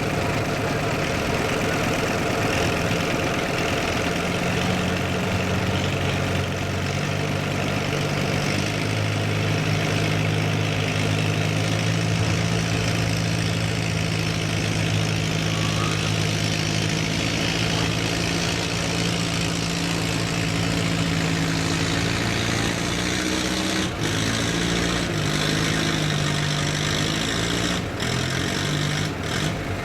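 Farm tractor engine running steadily at a constant pitch, then its pitch changes in several steps up and down over the last few seconds.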